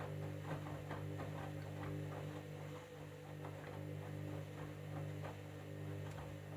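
Candy washing machine's drum motor running a jeans wash: a steady low hum with irregular clicks and knocks from the turning drum and load.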